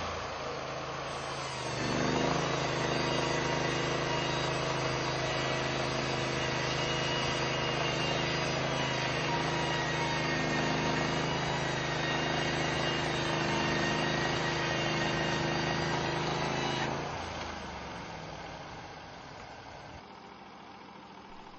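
A portable band sawmill's engine throttles up about two seconds in and runs steadily at speed, with a hiss of cutting noise over it, as the blade is run through the log. Near the end it winds back down to a quieter idle as the control is released.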